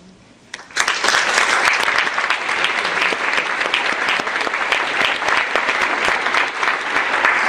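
Concert audience applauding, breaking out suddenly under a second in and continuing as a steady, loud clapping.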